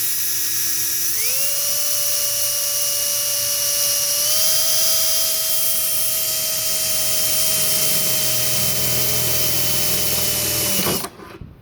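Power drill with a 15/64 bit running steadily as it enlarges a hole in a car bumper. Its whine steps up in pitch twice, about a second in and about four seconds in, then cuts off just before the end.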